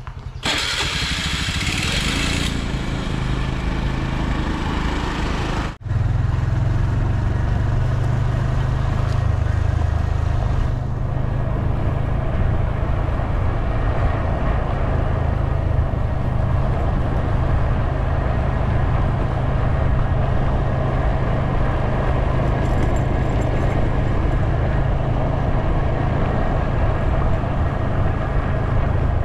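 Motorcycle under way, its engine running with a loud, steady low rumble. There is a brief break about six seconds in.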